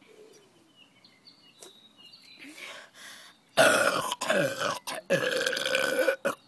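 A loud, long deliberate human burp, forced up after swallowing air and drinking carbonated 7 Up soda. It starts about three and a half seconds in and comes in two long pushes with a short break between, its pitch sliding downward.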